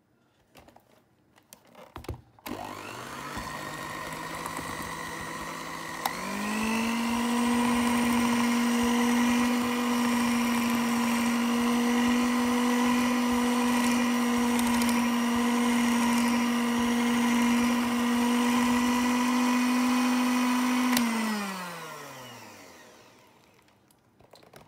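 Electric mixer with wire whisk beaters whipping pink strawberry cream. The motor starts about two seconds in at a low speed, steps up to a higher, steady whine a few seconds later, and near the end is switched off and winds down.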